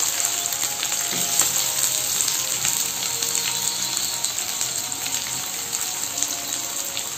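Chopped onions frying in hot oil in a kadhai: a steady sizzle with scattered crackles.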